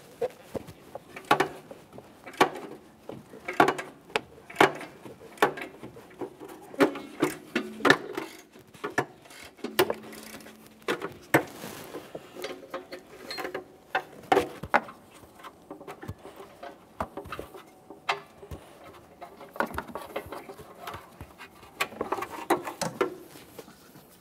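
Ratchet with a thin-wall O2 sensor socket clicking in short strokes as a downstream oxygen sensor is unscrewed from the exhaust pipe, mixed with metal clinks and knocks of the tool and sensor. The clicks come in irregular bunches.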